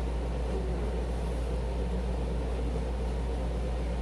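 A steady low hum with an even background hiss. No distinct chewing or utensil clicks stand out.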